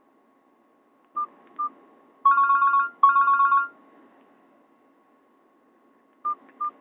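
Nokia ringtone played through a Nokia 216's loudspeaker: two short trilling bursts of rapid electronic beeps, each well under a second. They are set off by a pair of short single beeps before them and another pair near the end.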